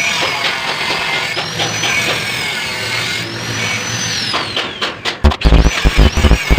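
Power tool noise mixed with music: a high tone swells up and down about every two seconds. Heavy rhythmic bass thumps come in about five seconds in.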